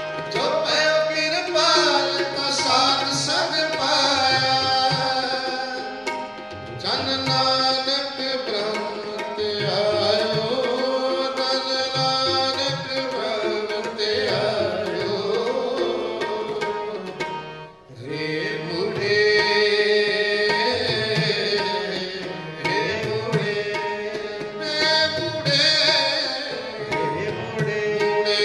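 Sikh kirtan: two harmoniums playing held chords with tabla drumming, and a voice singing the shabad over them. The music drops out briefly about eighteen seconds in, then resumes.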